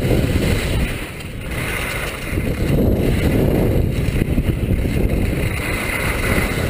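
Wind rushing over the microphone of a skier's body-worn camera during a downhill run on touring skis, mixed with the skis sliding over snow. The rush eases a little about a second in, then builds again.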